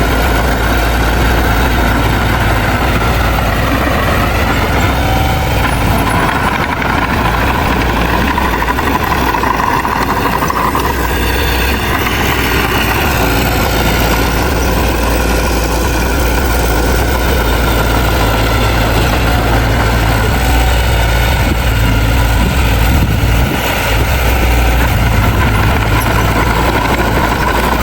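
Heavy diesel engine of an earthmoving machine running steadily, with a higher whine above the rumble that drifts slowly up and down in pitch.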